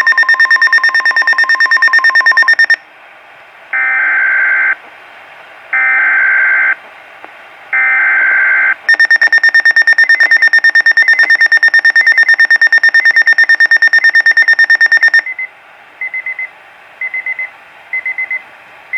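Weather radio emergency alert: a fast-pulsing high electronic alarm tone, then three one-second bursts of buzzy digital SAME header data about a second apart. The pulsing alarm then returns for about six seconds and gives way to groups of short beeps about once a second, signalling an incoming severe weather warning.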